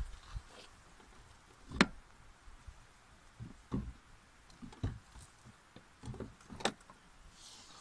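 Several scattered knocks and clunks of objects being handled and moved around in the back of a minivan while rummaging, the sharpest about two seconds in.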